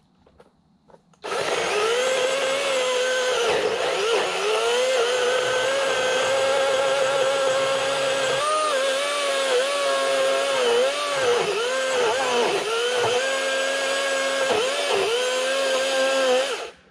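Greenworks Commercial GS 180 cordless 18-inch chainsaw starting about a second in, its electric motor whining steadily at a high pitch as it cuts into a tree trunk. From about halfway through, the pitch dips and recovers again and again as the motor is loaded in the cut. It stops just before the end.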